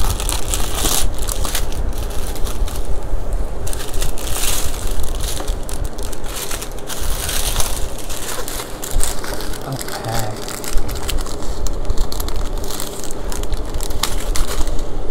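Small plastic zip-lock bags of diamond painting drills handled and crinkled close to the microphone: a continuous rustling with many sharp crackles.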